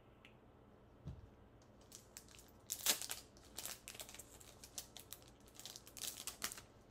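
Foil wrapper of a Pokémon Fusion Strike booster pack crinkling and tearing open in a run of sharp rustles, loudest about three seconds in.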